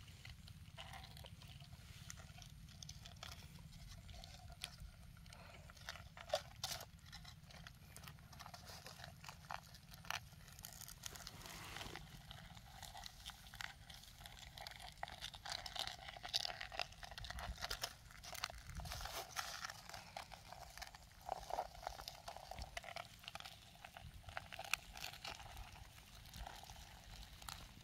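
Hands digging and scraping through dry grass and crumbly soil: irregular rustling, crunching and crackling with sharp little clicks, busier in the second half.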